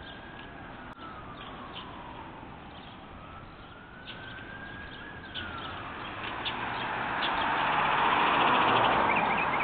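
A distant emergency-vehicle siren wailing, rising and falling slowly twice, with sparrows chirping. A louder rushing noise from traffic builds over the last few seconds.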